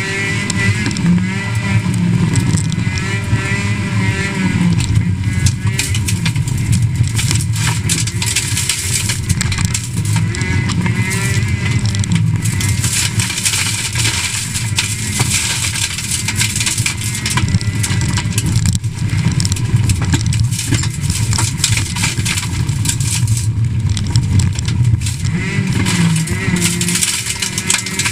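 Rally car engine heard from inside the cabin, running hard at high revs, its pitch rising and falling with throttle and gear changes, with many sharp clatters of gravel striking the car's underside.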